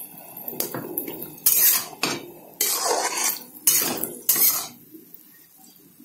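Spatula scraping and stirring mashed-potato filling in a frying pan: several short scraping strokes about a second apart, thinning out near the end.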